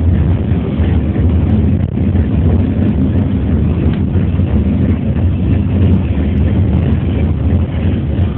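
Funicular car running downhill on its rails, heard from inside the cab: a steady low rumble from the running gear.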